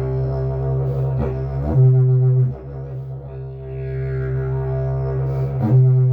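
Agave slide didgeridoo played as a steady low drone rich in overtones, with two louder, brighter accents, one about two seconds in and one near the end.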